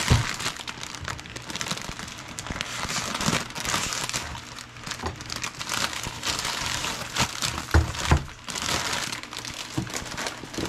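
Plastic wrapping of frozen udon noodle packets crinkling as they are handled and opened. There are a few dull knocks, one at the start and two about eight seconds in.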